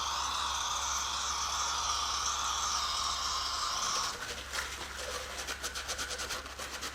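Aerosol can of WD-40 spraying in a steady hiss, cut off abruptly about four seconds in, then a few seconds of quick rubbing strokes on the cylinder head.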